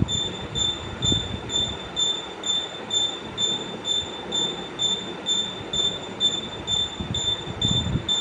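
A high-pitched squeak repeating evenly about twice a second over a low mechanical rumble, from a spinning mechanism squealing once per turn; a couple of heavier low knocks come about a second in and near the end.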